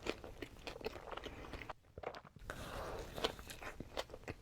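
Close-miked eating: crunchy bites and chewing of fast food, a run of sharp crackling clicks, with a brief break about two seconds in and a loud crunch near three seconds.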